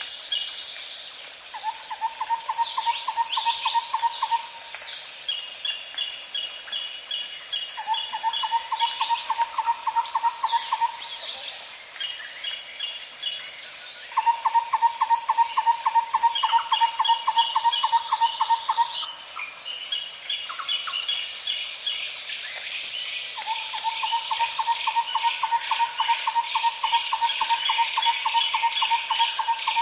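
A chorus of animal calls: repeated trains of rapid, evenly spaced call notes lasting a few seconds each, some lower-pitched and some higher, over a continuous high-pitched hiss.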